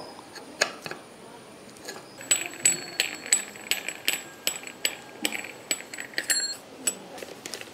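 Brass chakli press being put together: its screw-threaded brass top is fitted onto the dough-filled cylinder, giving a run of sharp metallic clicks and clinks, about two or three a second, some with a brief ring.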